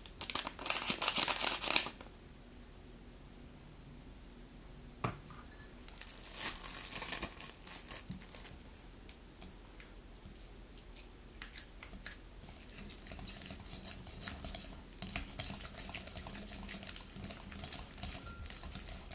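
Packaging crinkling and scrunching, loudest and densest in the first two seconds, then lighter, scattered rustles and small clicks.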